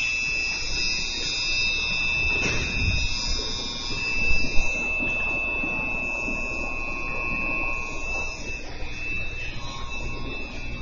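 Station departure bell ringing with a steady high electronic tone beside a stopped commuter train. The bell weakens and breaks up about nine seconds in, the signal that the doors are about to close.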